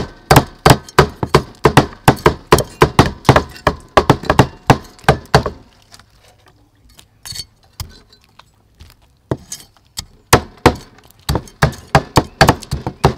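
Steel cleaver chopping onto a thick wooden chopping board, cutting the legs and whiskers off giant river prawns, about four quick knocks a second. The chopping pauses for about four seconds midway, with only a few single knocks, then resumes.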